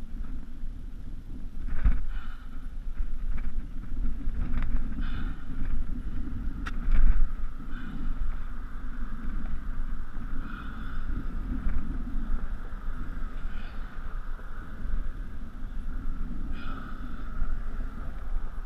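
Wind rumbling on the microphone, rising and falling, with short rasping bursts every second or two.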